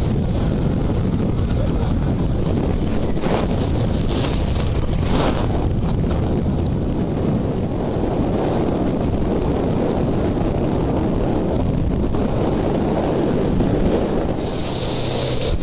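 Gale-force wind buffeting the microphone on a boat at sea, a steady heavy rush over the low rumble of the boat and waves, with a few brief sharper gusts a few seconds in.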